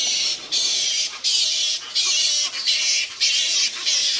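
A roosting colony of fruit bats (flying foxes) screeching en masse: a dense, high-pitched chorus that comes in surges broken by brief pauses about twice a second. The colony is growing active at dusk before flying out to feed.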